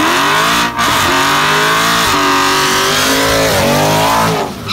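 Dodge Charger Hellcat's supercharged HEMI V8 revving hard through a burnout on drag radials, with the rear tyres spinning and squealing. The revs climb, dip briefly about a second in, hold high, then fall away near the end.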